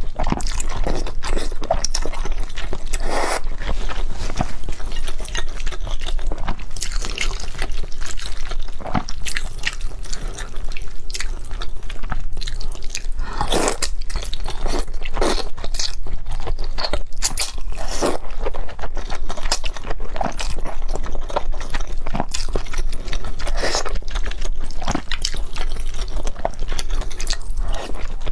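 A person slurping wide, sauce-coated flat noodles and chewing them wetly, in quick irregular mouthfuls.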